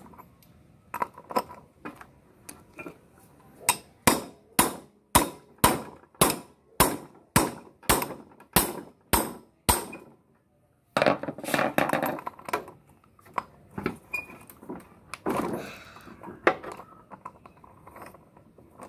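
A hammer striking metal in a steady run of about a dozen sharp blows, roughly two a second, during work on a scooter's front wheel bearing. After a short pause come two longer, rougher noises.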